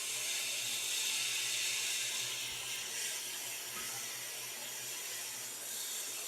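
Hot air rework station blowing a steady hiss of hot air through its nozzle, set to about 400 degrees, to heat a surface-mount part off a circuit board.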